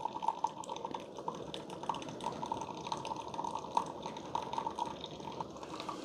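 Keurig K-Supreme Plus coffee maker brewing on its strong setting: a slow, unbroken stream of coffee trickling into a glass mug, with many small irregular drips and splashes. The slower flow is typical of the stronger brew settings.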